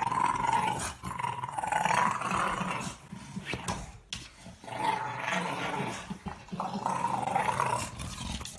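A bulldog growling in a run of rough growls a second or two long, with short breaks, while gnawing a black rubber chew toy.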